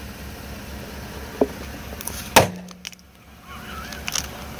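Disposable cup crushed under a slowly rolling car tyre: a small click, then about a second later a loud sharp crack as the cup gives way, with a few fainter crackles after. The car's engine hums low and steady underneath.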